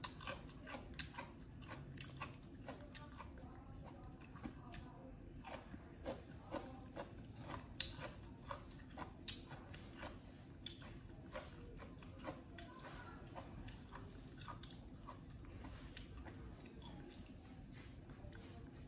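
Baby monkey chewing and biting food: irregular smacking and clicking mouth sounds, frequent for the first twelve seconds or so, then sparser.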